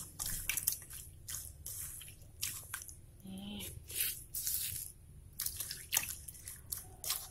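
Hand squishing raw shrimp in a plastic bowl, working a wet crushed-garlic spice paste into them: irregular wet squelches and small clicks.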